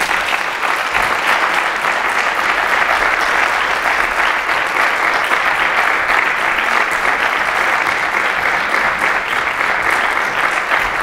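A large audience applauding, a dense, steady clapping that breaks out all at once and keeps going strongly, the ovation at the end of a talk.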